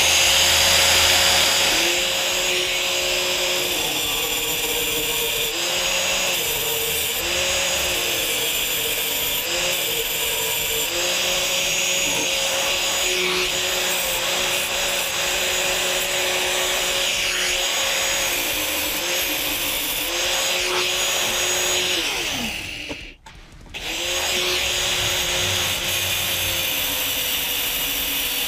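Angle grinder cutting 16-gauge sheet steel, its motor whine dipping again and again as the disc bites into the metal. About 22 seconds in it is switched off and winds down, then starts again a second later.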